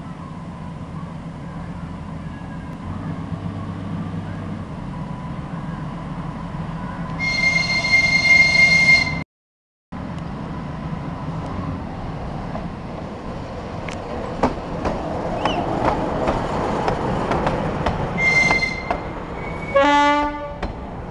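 TU7A narrow-gauge diesel locomotive running as it approaches with a train of passenger coaches, and sounding its horn in a loud steady blast of about two seconds. The sound then cuts out for about half a second. The coaches roll past with wheels clicking over the rail joints, and near the end there is a short second horn blast followed by a lower-pitched tone.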